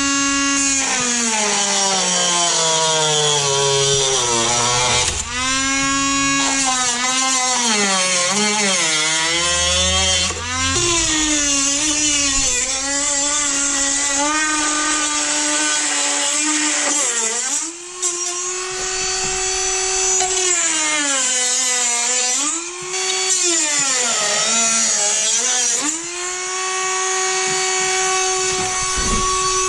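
Electric cutting tool fitted with a plastic-cutting wheel, whining as it cuts through plastic vent fins. Its pitch drops each time the wheel bites into the plastic and rises again as it is eased off, over and over; it spins freely at a steady pitch at the start and near the end.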